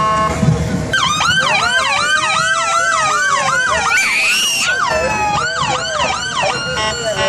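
Fire department vehicle sirens in yelp mode, several overlapping: quick rising whoops about three a second, with a slower wail gliding up and down under them. They start about a second in and give way to steady tones near the end.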